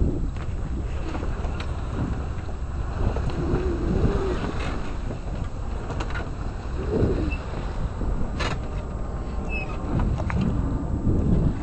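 Wind buffeting the microphone over the rush of water along a sailboat's hull under sail, with gusty swells and a single sharp click about two-thirds of the way through.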